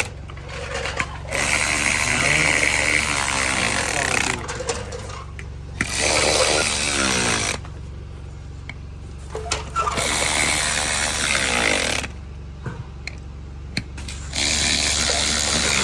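Cordless power tool driving in the bolts of a beadlock ring on a side-by-side rim, run in four bursts of two to three seconds with short pauses between as it moves from bolt to bolt in a crisscross pattern.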